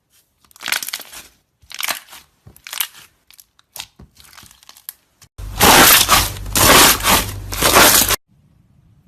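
Slime being squeezed and pressed by hand, giving short crackling bursts, then a louder, denser crackling stretch of about three seconds that stops abruptly.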